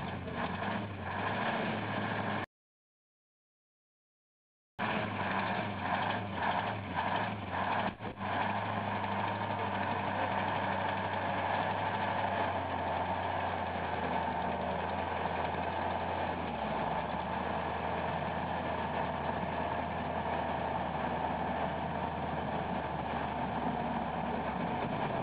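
Heavy 6x6 military pontoon-carrier truck's diesel engine running steadily under load as it hauls a bridge pontoon up out of the water. Its pitch drops slightly about two-thirds of the way through. The sound cuts out completely for about two seconds near the start.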